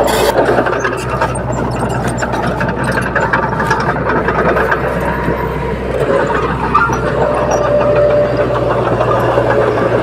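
Small crawler bulldozer's diesel engine running steadily under load as it pushes soil, with a rattle from the machine.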